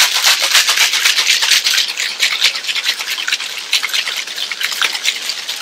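Ice rattling hard inside a metal cocktail shaker being shaken vigorously: a loud, fast, continuous rattle of ice against the tins.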